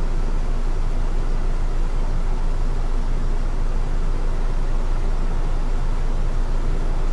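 Isuzu city bus engine idling steadily while the bus stands at an intersection, a constant low rumble heard from inside the cabin at the front.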